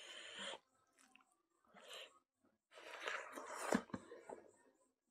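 Close-miked eating sounds: wet chewing and fingers squishing rice and smoked pork on the plate. They come in a few short bursts, the longest about three seconds in, with one sharp click.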